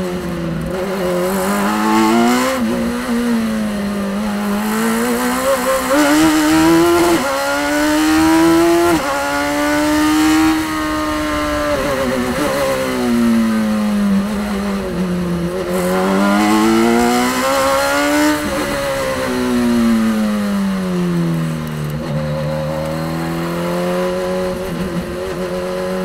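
Radical SR3 XX 1500 race car's engine at full racing effort, heard from the cockpit. The pitch climbs and falls several times through the lap, rising under acceleration, dropping sharply at gear changes, and sinking as the car brakes for corners.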